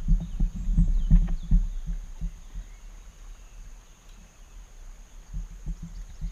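Dull knocks and bumps against a plastic sit-on-top kayak's hull as the angler shifts his weight and works over the side. They come thick for about the first second and a half, thin out, then return as a few knocks near the end.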